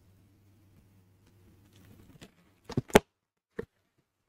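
Knife slitting the packing tape on a cardboard box, a soft scraping, then the flaps pulled open with a few sharp cardboard knocks about three seconds in and one more shortly after.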